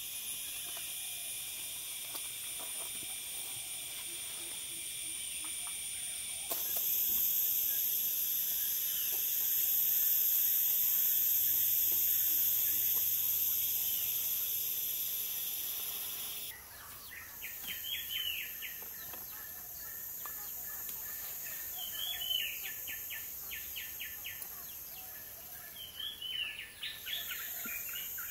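Tropical forest ambience: a steady, high-pitched insect drone that shifts abruptly twice. In the last third, a bird gives quick series of short whistled notes several times.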